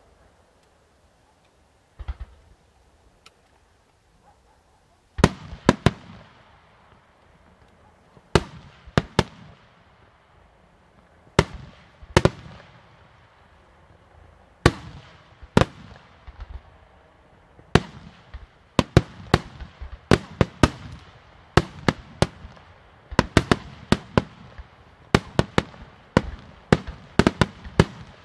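Aerial firework shells bursting in sharp bangs. A single bang comes about two seconds in, then from about five seconds in a run of reports follows that comes quicker and denser toward the end.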